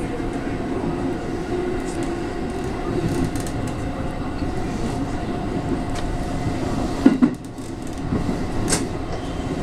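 JR West 221 series electric train running, heard from inside the passenger car: steady rumble of wheels on rail with a steady hum. A sharp double knock about seven seconds in.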